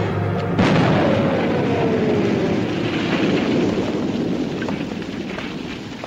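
A battlefield explosion goes off about half a second in, then rumbles on and slowly fades over several seconds, with a tone sliding downward under the rumble.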